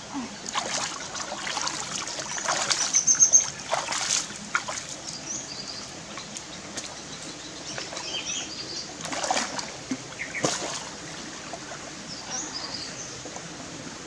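Stream water splashing and sloshing in irregular bursts as hands grope through a shallow rocky pool, over a steady trickle of the stream. The splashing is loudest about three seconds in. Birds chirp briefly now and then.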